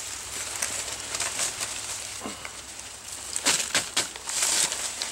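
A metal digging spoon scraping and crunching into dry, crumbly soil, with a few short scrapes and crumbles clustered about three and a half to four and a half seconds in.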